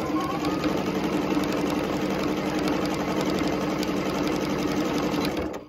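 Electric sewing machine stitching at a steady, fast speed through a fabric pocket and terry-cloth towel, the needle going in a rapid even rhythm; it stops abruptly near the end.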